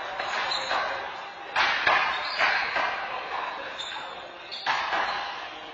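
Rubber handball smacking off hands, the front wall and the floor during a rally, sharp echoing smacks in a large hall: three close together around two seconds in, and one more near the end.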